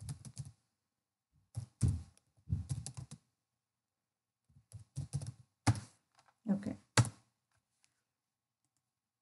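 Typing on a computer keyboard: several short bursts of keystrokes with silent pauses between them.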